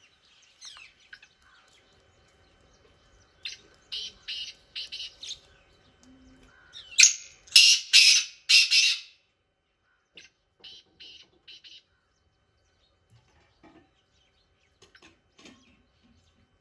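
Black francolin calling: three runs of short, rapid notes. The first comes about three and a half seconds in, the loudest about seven seconds in, and a quieter one about ten seconds in.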